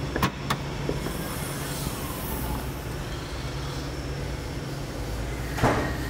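Mercedes A-Class hatchback tailgate being opened: the latch clicks twice near the start, and a louder rushing sound comes shortly before the end, over a steady low hum.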